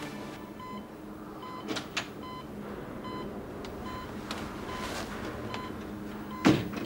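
Hospital bedside patient monitor beeping, short high beeps repeating evenly. A few soft clicks early on and one sharp knock near the end.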